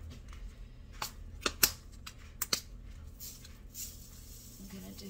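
Blue plastic cap of a spice jar being twisted off and its shaker lid opened: a few sharp plastic clicks and snaps, closely spaced, between about one and two and a half seconds in.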